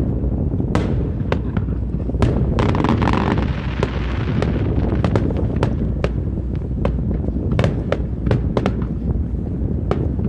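Fireworks going off: a rapid, irregular series of sharp bangs and cracks, with a hissing crackle that swells around the third and fourth seconds, over a steady low rumble.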